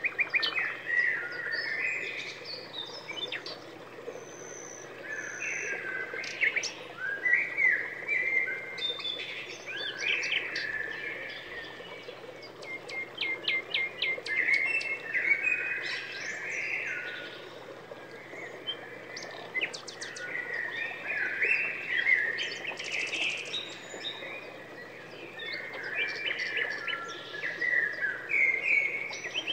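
A busy chorus of small birds chirping and singing, with many short calls overlapping one another.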